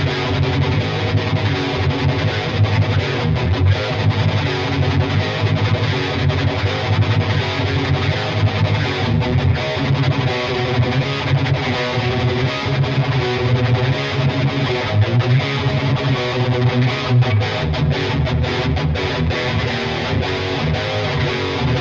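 Epiphone Les Paul Studio Gothic electric guitar played with heavy distortion: continuous riffing and strummed chords with a thick low end. There are a few brief breaks between chords near the end.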